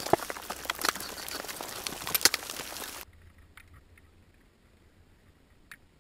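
Close rustling and crunching with many sharp clicks, as of climbing gear and snow moving right by the microphone, for about three seconds. Then it cuts abruptly to near quiet with a few faint clicks.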